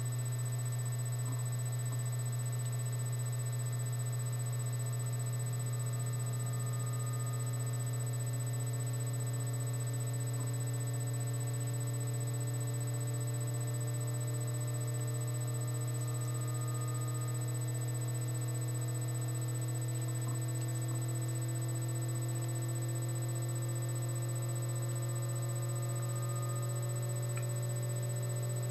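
Steady low electrical hum with a thin high whine above it, and fainter tones underneath that drift slowly upward in pitch.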